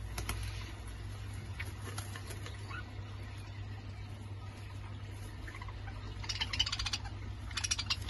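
Budgerigars in an aviary: two short bursts of rapid scratchy clicking near the end, with a few faint ticks before them, over a steady low hum.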